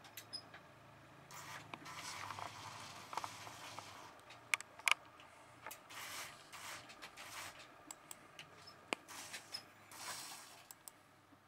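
Faint computer mouse clicks, scattered and single, with soft scraping in short stretches as the mouse is slid across the desk.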